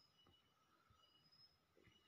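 Near silence: faint outdoor background with a few brief, faint high-pitched notes.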